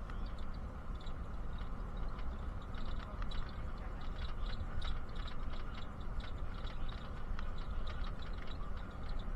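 Inside a moving bus: a steady low rumble of engine and road, with many quick light rattles and ticks from the cabin throughout.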